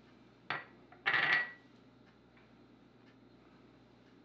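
Small glass prep bowls clinking as one is set down: a single sharp clink about half a second in, then a short clatter of several quick clinks around a second in, with a ringing tone.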